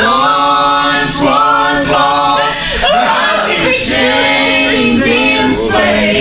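Group of voices singing a gospel song together, on long held notes.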